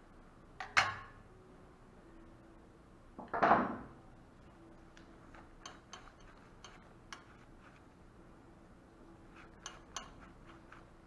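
Stainless steel surgical instruments clinking against a steel kidney dish. There is one sharp clink about a second in and a longer, noisier clatter a few seconds later, then light scattered clicks.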